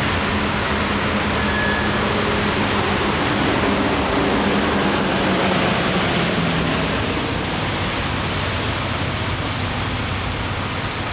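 Steady road traffic on a busy city street: cars and vans passing, a continuous rush of tyre noise with engine hum underneath that is stronger in the first half.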